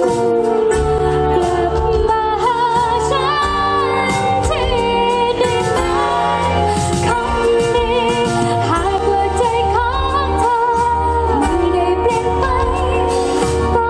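Live pop band playing with a woman singing lead, backed by a drum kit and a steady bass line.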